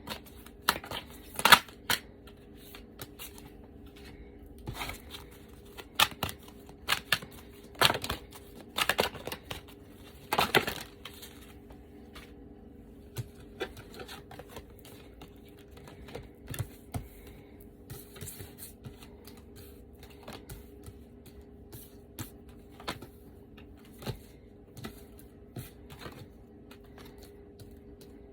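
Tarot cards being shuffled and handled: a run of sharp card snaps and flicks, busiest in the first ten seconds or so, then scattered lighter taps, over a faint steady hum.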